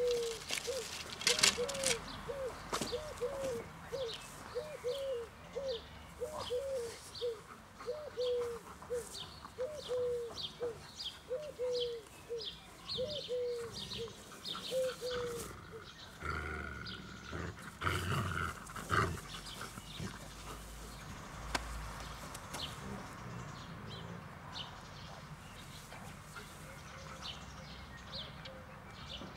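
Australian shepherd growling during a game of tug-of-war, in a run of short rhythmic growls about one or two a second, with a louder, rougher bout a little past the middle.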